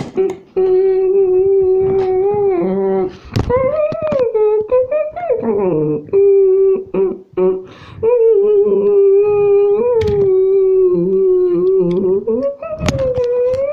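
A high voice humming long, steady held notes, with swooping rises and falls in pitch now and then, voicing the engines straining to pull a toy train free.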